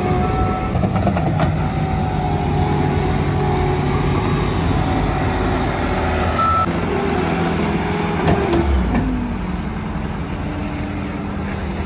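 Bobcat T76 compact track loader's diesel engine running as the machine is worked, its pitch shifting as the revs change, with a few short backup-alarm beeps.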